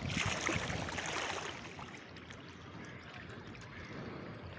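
Steady rush of flowing river water, louder for the first two seconds and then softer.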